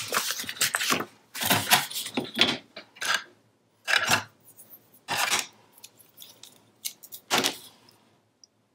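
Sheets of cardstock and patterned paper shuffled and slid over a self-healing cutting mat, with the clatter of a steel ruler being picked up and laid down: a run of short rustles and clinks that stops about eight seconds in.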